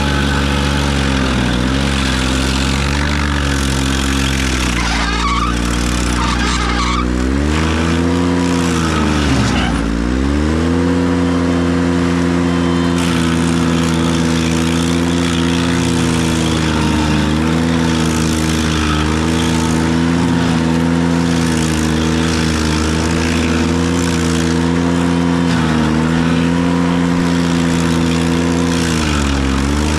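Ventrac 4520Z tractor's engine running hard to drive a KC220 stump grinder, over a steady hiss. Its pitch sags and recovers a few times, most deeply about ten seconds in, as the cutter wheel takes load biting into the stump.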